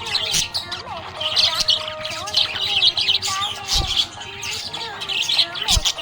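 Budgerigars chirping and warbling without a break: rapid, high chirps over lower, wavering warbled notes. Two brief low thumps come near the middle and near the end.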